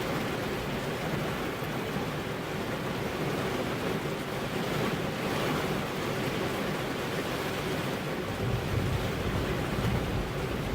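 Steady rain falling on a car's glass windows. A deep low rumble swells up near the end.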